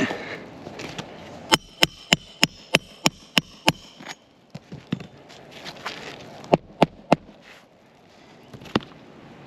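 A hammer driving roofing nails into an asphalt shingle, with sharp ringing strikes. A quick run of about eight blows comes at about three a second, and a few more single blows follow later.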